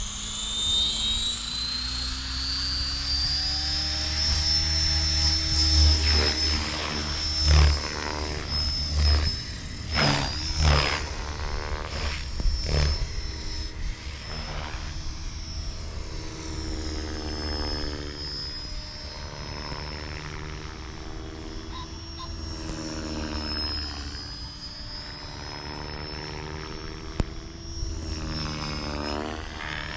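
Electric 500-size RC helicopter (Beam Archon SE with a 6S brushless motor) flying. Its rotor whine rises in pitch over the first few seconds as the head spools up to speed, then holds a steady high whine with blade chop, bending up and down in pitch as it manoeuvres and passes. Several loud low rumbles come between about six and thirteen seconds in.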